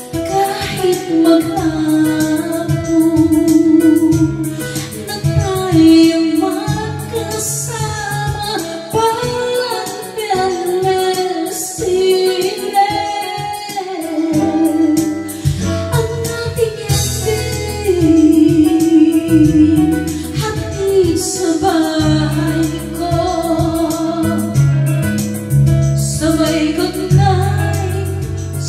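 A woman singing karaoke into a handheld microphone over a karaoke backing track, her voice carrying long, wavering held notes.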